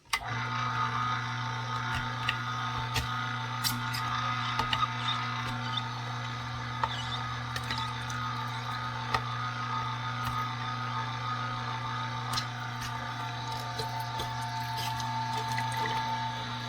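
Omega masticating juicer switched on, its motor starting and running with a steady low hum and a whine, as the auger crushes tangerines with scattered cracks and crackles.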